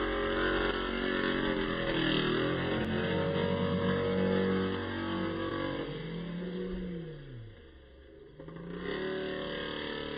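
Small 49cc two-stroke engine with a tuned expansion pipe on a large-scale RC monster truck, revving hard with the pitch rising and falling as it is throttled. About six seconds in, the revs sweep down and the sound drops away, then the engine revs up again near the end.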